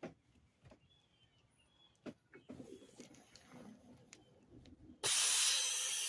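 Faint clicks and knocks of hand work on the brakes, with a few short bird chirps in the background; about five seconds in, a sudden loud, steady hiss of spraying air or aerosol starts.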